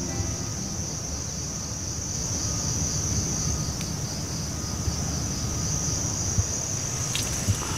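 Steady, high-pitched insect chirring in the open field, over a low rumble, with a few faint clicks near the end.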